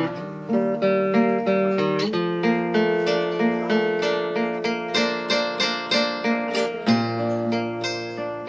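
Solo classical guitar, tuned to A = 432 Hz, played fingerstyle: a steady stream of plucked arpeggio notes over ringing bass notes, with the bass changing a few times.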